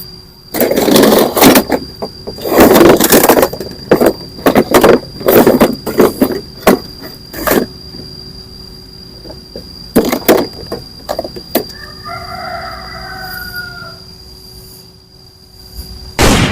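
A run of loud rustling and scraping bursts, then a few sharp clicks, as toy guns are handled. A rooster crows once in the background about twelve seconds in, and a last sharp click comes near the end.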